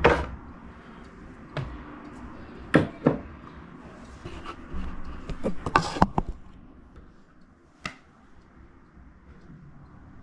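Handling noise from a camera being set in place: a series of sharp knocks and clicks with some rustling, the loudest at the start and around six seconds, with a last click about eight seconds in.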